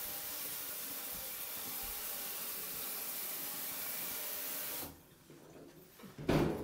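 Kitchen faucet running into a stainless steel sink, the water splashing over hands rinsing a piece of mushroom. The flow stops suddenly about five seconds in, and there is a brief louder noise near the end.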